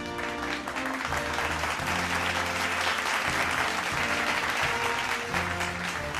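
Music with a steady bass line, and applause rising over it about a second in and easing off near the end.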